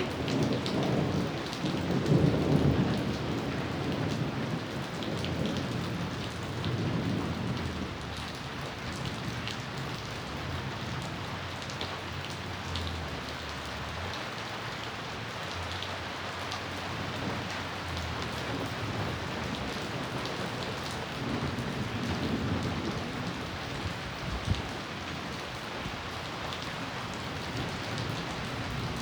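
Steady rain falling, with scattered drops ticking. A rolling thunder rumble is loudest in the first few seconds and fades away, and a second, weaker rumble comes about three quarters of the way through.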